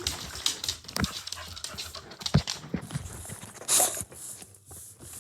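A dog panting, with scattered knocks and taps throughout and one louder breathy burst a little under four seconds in.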